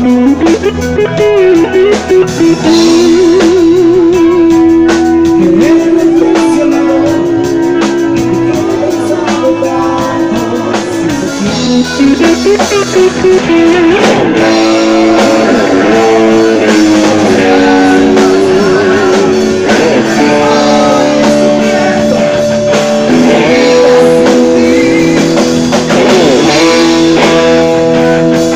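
Live rock band playing loudly: an electric guitar lead with held notes that waver and bend, over rhythm guitar, bass and a drum kit.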